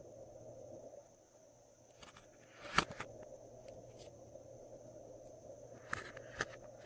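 Glossy slime being handled and mixed, giving a handful of short sticky clicks and pops, the loudest about three seconds in, over a faint steady background hum.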